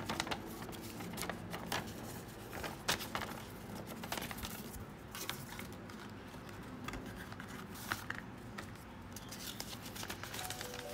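Paper booklet pages rustling and flipping, and a small cardboard box and card insert being handled, with scattered clicks and taps; the sharpest come about three seconds in and near eight seconds.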